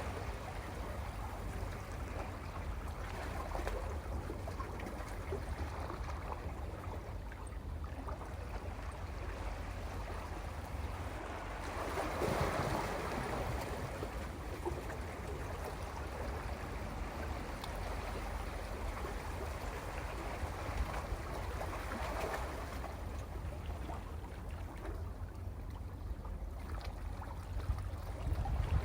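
Sea waves washing in and out over a rocky shore, a steady low rumble with surges as waves break, the biggest about twelve seconds in.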